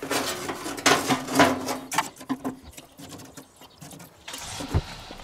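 Metal tongs clinking and scraping against charcoal briquettes in an ash bed, with briquettes knocking together as they are picked up and set onto a cast-iron Dutch oven lid. It comes as a string of irregular sharp clicks and knocks.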